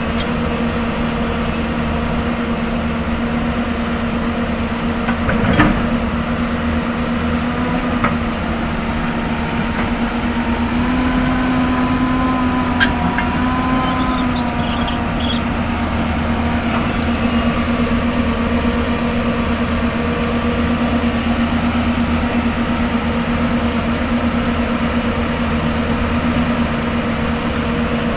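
Hyundai Robex 220-9S excavator's diesel engine running steadily, its note rising briefly about halfway through, with a few sharp knocks.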